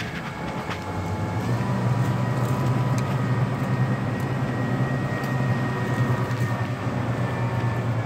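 Engine of the truck-mounted tree-removal crane running steadily, getting louder about a second and a half in and holding there, with a faint steady whine over it.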